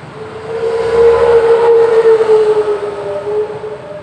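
Honda Scoopy scooter engine revved, with a loud steady horn-like hum over it: the 'ngorok' noise made by air swirling in the intake housing. It swells about half a second in, holds strongest for a couple of seconds, then eases a little but keeps going.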